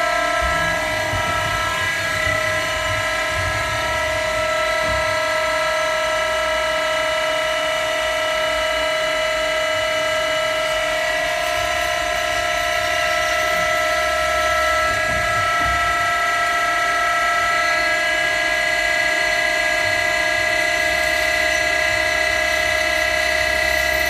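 CNC lathe machining with a driven (live) tool: a steady, high-pitched whine of several held tones over a low rumble.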